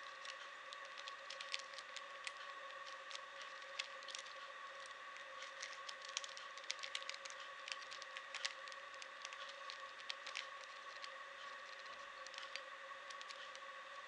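Plastic Rubik's cube being turned by hand: quick, irregular clicks of the layers snapping round, several a second, over a steady faint high-pitched hum.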